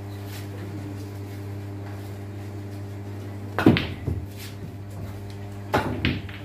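Pool balls clacking together during a shot: a sharp, loud clack about three and a half seconds in, a few lighter clicks after it, and another pair of clacks about two seconds later. A steady low hum lies under it all.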